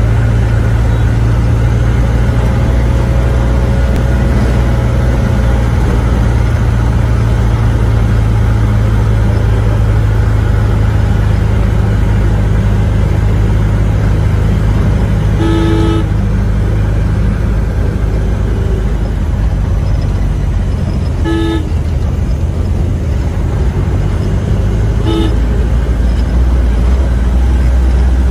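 A road vehicle's engine drones steadily and loudly while driving. A horn gives three short toots, about halfway through, a few seconds later, and again near the end.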